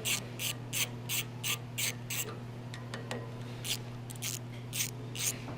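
Hand ratchet wrench clicking in short strokes, about three a second, as it backs out the long through-bolts of a blade guide arm motor; the clicking pauses about halfway and resumes. A steady low hum runs underneath.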